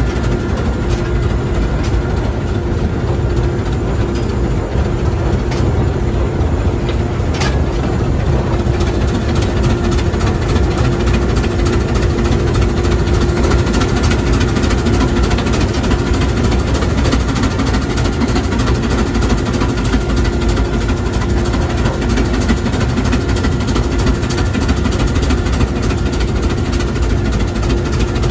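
Steam road locomotive under way, heard from its driver's platform: a loud, steady mechanical running noise with a constant hum.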